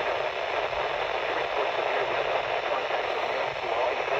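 Radio static: a steady hiss from a radio receiver with no clear signal on the channel.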